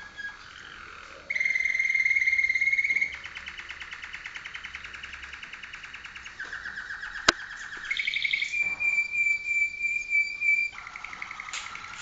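Malinois (Waterslager) song canary singing: long held whistled notes alternating with fast rolling trills, changing pitch every second or two. A single sharp click cuts through a little past the middle.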